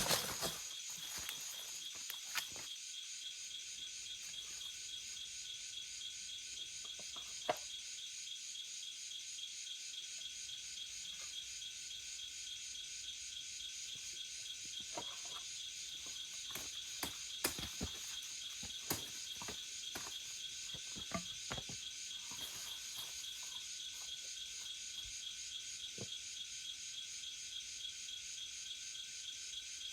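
A steady chorus of insects chirring in several high pitch bands, with a fast pulsing texture. Scattered light clicks and taps come through, most of them in a cluster in the second half.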